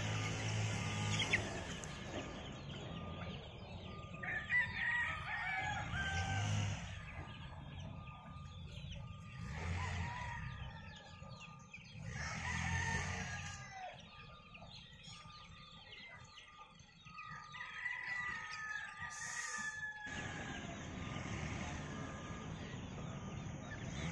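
Gamefowl roosters crowing several times, with the flock of chickens clucking in between.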